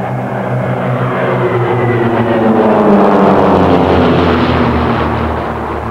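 Propeller-driven SIAI-Marchetti SF.260's six-cylinder Lycoming piston engine as the aircraft passes by. The engine grows louder to a peak about three seconds in, then drops in pitch and fades as it moves away.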